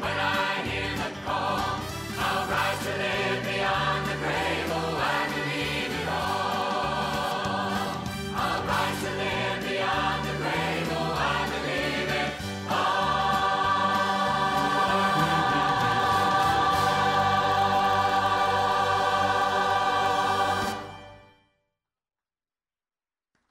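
Mixed church choir singing a gospel song, ending on a long held final chord that begins about halfway through and stops abruptly a couple of seconds before the end, leaving silence.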